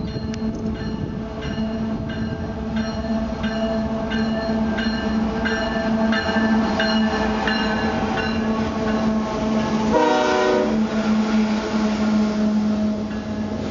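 Canadian Pacific diesel freight locomotives passing close by with a steady engine hum, while a bell rings about twice a second and fades out over the first eight seconds. About ten seconds in, a short blast of the horn sounds.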